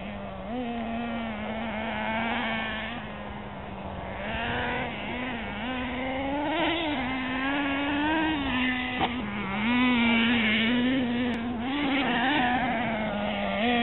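Radio-controlled racing cars buzzing around a dirt track, their motor pitch rising and falling as they are throttled on and off, with a sharp click about nine seconds in.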